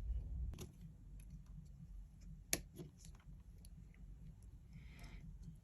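Faint, scattered small clicks and taps of iPhone parts being handled during screen reassembly, with one sharp click about two and a half seconds in and a brief soft rustle near the end.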